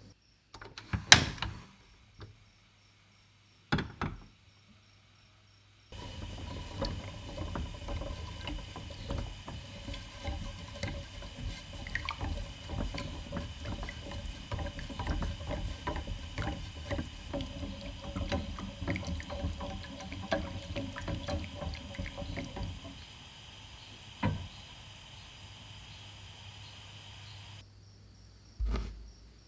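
A wire whisk stirring milk and melting dark chocolate in a small saucepan: a quick, irregular clatter and swish of the wires against the pan, which stops about three-quarters of the way through. A few separate knocks come before it starts.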